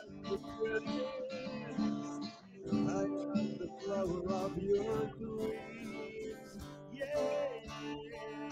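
Acoustic guitar being strummed and picked through a chord riff.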